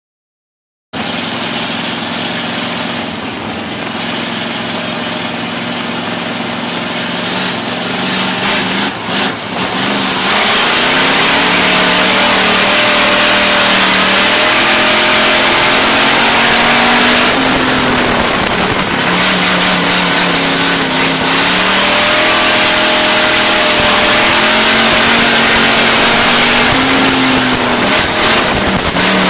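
Dirt-track race car engine heard from inside the car. It runs at a steady pitch at first, gets much louder about ten seconds in, then revs rise and fall repeatedly as the car laps the oval.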